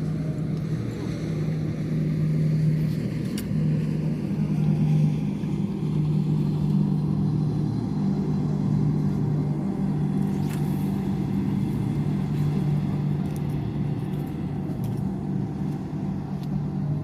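Steady low engine drone, with a couple of faint clicks.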